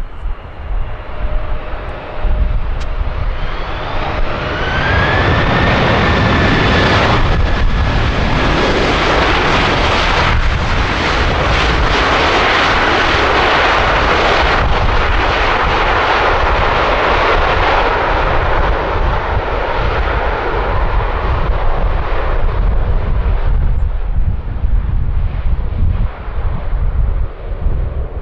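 Jet airliner passing on its landing approach: engine rush and fan whine build about four seconds in, hold loud for some fifteen seconds, then fade. Gusty wind rumbles on the microphone throughout.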